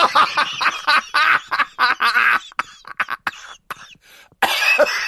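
A voice making wavering, cough-like vocal sounds, edited into a stuttering run of short repeated clips with abrupt cuts between them.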